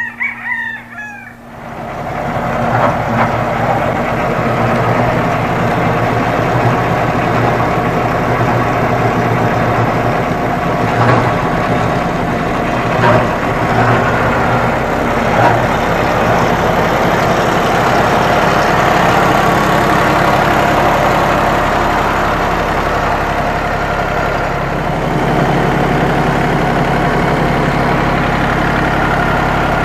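Lawn mower engine running steadily, swelling to full loudness about two seconds in, its note shifting slightly near the end. A short animal call sounds at the very start.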